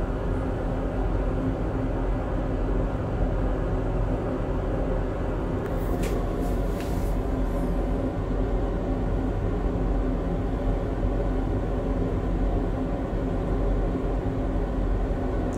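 Stir-frying pork and vegetables in oyster sauce in an aluminium pot over a steady low hum, with two brief scrapes of the spatula about six and seven seconds in.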